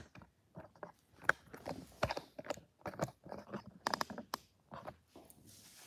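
Handling noise from a phone being adjusted by hand: a string of irregular taps and knocks, some in quick clusters, stopping near the end.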